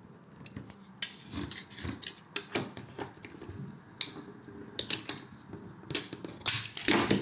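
Irregular clicks, scrapes and light knocks of hand-tool work on a bathtub and its fittings, with a burst of louder scraping and knocking near the end.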